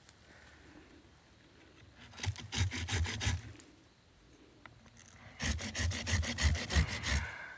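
Two bursts of quick rhythmic scraping, about five strokes a second; the second burst is longer.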